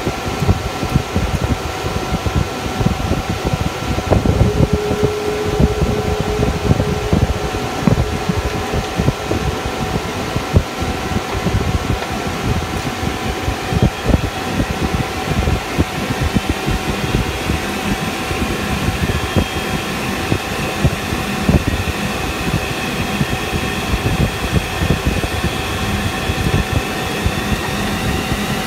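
Cockpit noise of a KC-135 tanker's four jet engines together with the cockpit air conditioning: a low rumble with two steady whining tones. From about halfway through, higher whines rise slowly as the engines spool up toward take-off thrust.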